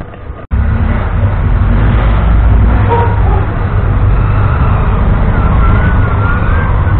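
Loud, steady, low noise from wind buffeting a small camera's microphone. It starts abruptly about half a second in. A faint wavering whistle rises and falls near the end.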